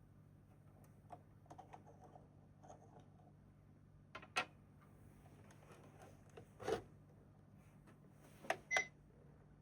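Plastic toy pieces being handled: light clicks and knocks of a toy microwave and its toy dishes, with louder clacks about four, six and a half, and eight and a half seconds in, the last pair with a brief beep-like tone.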